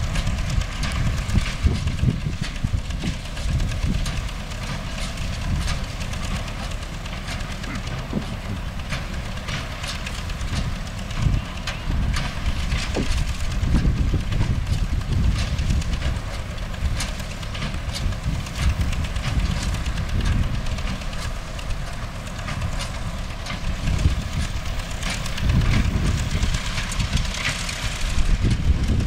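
MTZ-5LS tractor's diesel engine running steadily under load, driving a Vestjyden hay baler, with a continuous low rumble and a dense, irregular clatter of mechanical knocks from the baler's working parts.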